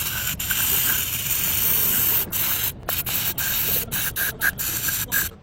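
Hiss of a pressurised spray jet, held steadily for about two seconds, then let off and pressed again in a series of short bursts before it cuts off suddenly near the end.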